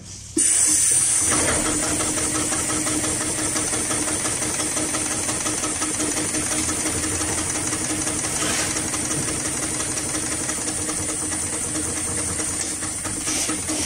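HighTex 733-30 long-arm industrial straight-stitch sewing machine running at speed through thick felt. It starts suddenly just under half a second in and keeps up a fast, even clatter of stitches with a steady hiss over it.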